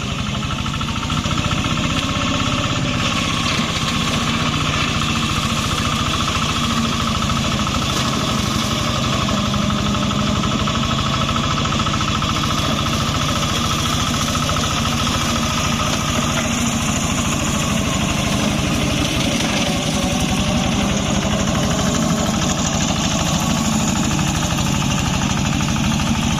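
Small engine of a wheeled grass-cutting machine running steadily at a constant speed, a fast, even mechanical chatter.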